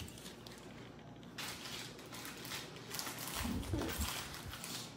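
Soft rustling and handling noise as a cardboard earring card is moved about right against the phone's microphone, with a brief faint vocal sound about three and a half seconds in.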